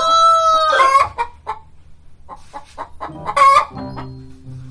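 Rooster crowing, its drawn-out last note ending about a second in, followed by hens clucking and one short loud call.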